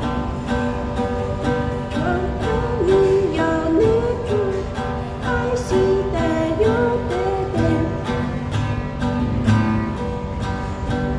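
Acoustic guitar strummed in a steady rhythm, with a voice singing a melody over it that comes in about two seconds in.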